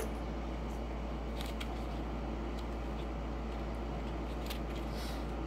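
Faint paper rustling and a few light clicks from a paper-wrapped roll of half-dollar coins being handled and opened, over a steady low hum.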